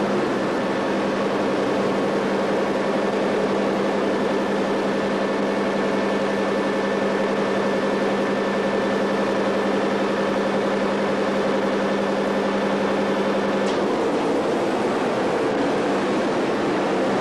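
Steady mechanical noise with a low hum and a few steady tones. The hum cuts off with a click near the end while the rest of the noise carries on.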